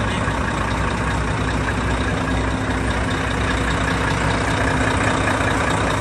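Heavy truck diesel engine idling steadily.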